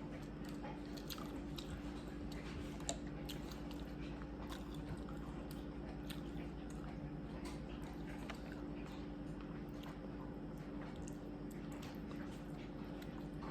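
Close-up eating sounds of a person chewing seafood: irregular small wet clicks and smacks of chewing, over a steady low hum.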